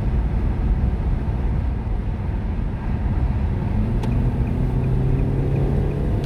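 Car interior: steady road and engine noise while driving, the engine note climbing slightly after about three seconds. A click about four seconds in is followed by faint, regular ticking, about three a second.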